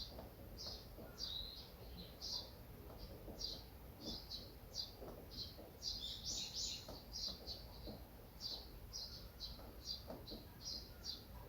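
Small birds chirping: a steady run of short, high chirps about twice a second, with a busier, louder cluster a little past the middle.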